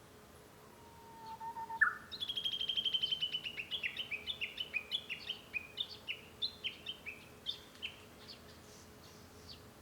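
Japanese bush warbler (uguisu) singing: a held low whistle that flicks sharply upward, then a long run of quick down-slurred notes, about four or five a second, that trails off near the end.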